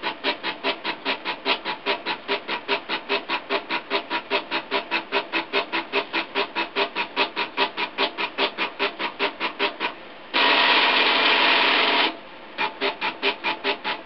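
Homemade 3D printer's stepper motors buzzing in quick, even strokes, about four a second, as the print head shuttles back and forth filling in the part. A little over ten seconds in, the strokes give way to a louder, steady buzz for nearly two seconds, then a brief pause before the back-and-forth strokes resume.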